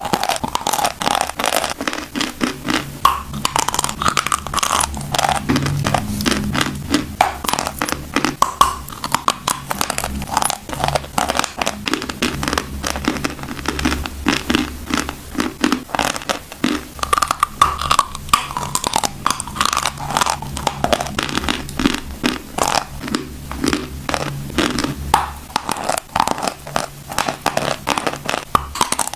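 Close-up chewing and crunching of chalk: many crisp, irregular crunches and scraping bites in quick succession.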